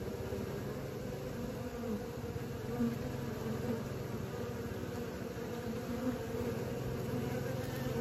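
Many honeybees buzzing together at a hive entrance, a steady drone of wings with a low hum, as young bees make orientation flights.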